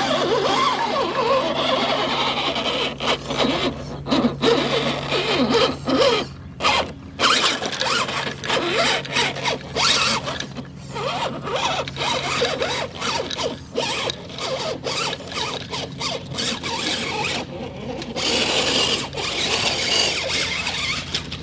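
Axial 1955 Ford F100 RC crawler's electric motor and gears whining in short, stop-start throttle bursts, the pitch rising and falling.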